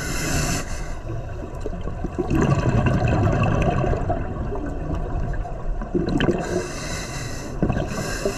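Scuba diver breathing through a regulator underwater: a hissing inhale at the start, a long bubbling exhale from about two seconds in, and another hissing inhale near the end.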